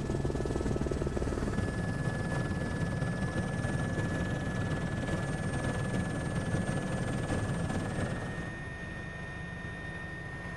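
Helicopter engine and rotor noise heard from on board: a steady, dense low running sound with a thin high whine. About eight and a half seconds in it drops in level and sounds duller.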